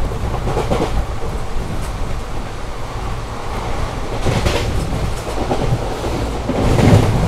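ICF passenger coach of an express train running at high speed: a steady rumble of wheels and wind, with the wheels clattering over rail joints. There is heavier clatter a little after four seconds in and again near the end as the wheels cross points.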